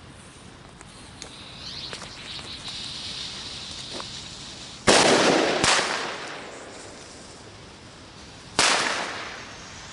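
New Year's Eve fireworks: a whistling hiss for a few seconds, then three loud bangs, two close together about five seconds in and one near the end, each followed by a long echo.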